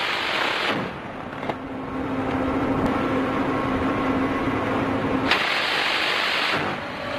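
Action-film sound mix: a vehicle engine runs with a steady low hum, broken twice by sudden stretches of dense, loud roaring noise, one near the start and one of about a second near the end.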